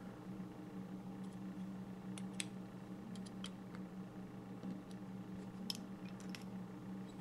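Faint small metal clicks and ticks, irregularly spaced, from a precision screwdriver tightening the positive post screw on a rebuildable dripping atomizer deck to clamp stainless steel coil wire. A steady low hum runs underneath.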